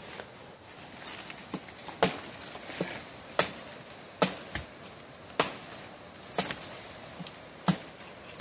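Machete (bolo) chopping into a slender wooden pole: sharp strikes about once a second, six loud blows with lighter taps in between.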